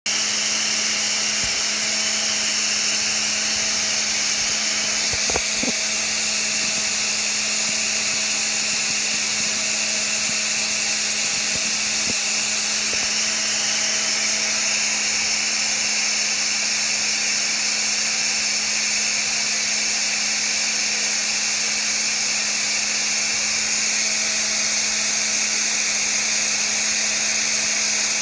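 Electric motor running steadily, giving an unchanging hum with a strong hiss over it.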